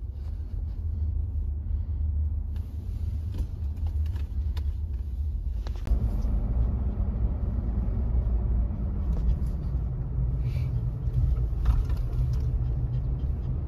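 Road noise inside a moving car's cabin: a steady low rumble from the tyres and engine while driving, with a few light clicks.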